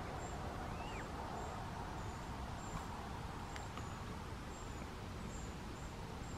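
Quiet outdoor ambience by a pond with a steady faint hush. A thin high bird note repeats every half second or so, and a single short rising-and-falling bird call comes about a second in.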